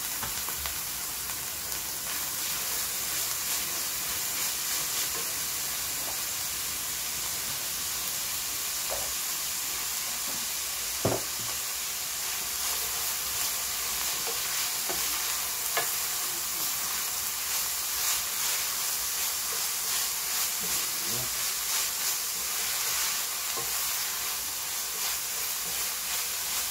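Minced beef sizzling as it fries in a frying pan, stirred and scraped round with a wooden spoon, with a steady hiss and small clicks of the spoon on the pan. One sharper knock about halfway through.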